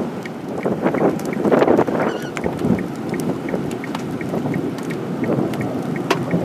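Gusty wind buffeting the microphone outdoors under a tornadic supercell, with scattered sharp taps of raindrops.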